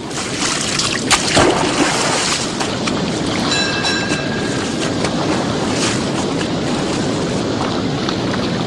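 Wind and rough sea rushing steadily around a boat at sea. There is a sharp knock about a second in and a brief high-pitched tone about three and a half seconds in.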